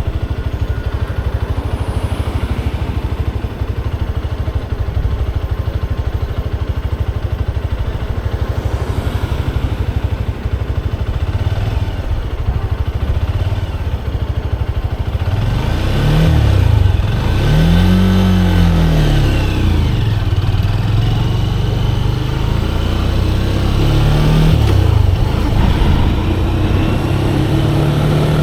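Motorcycle engine running at low revs, then revved up and back down about halfway through, with a shorter rise and fall again later.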